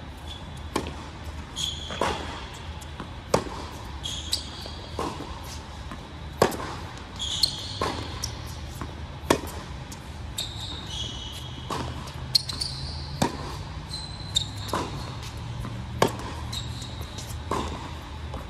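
Tennis serve and baseline rally on an indoor hard court: the ball is struck by rackets and bounces every second or so, and the sharpest cracks come about every three seconds. Short high sneaker squeaks come between the shots, and the hall gives the hits an echo.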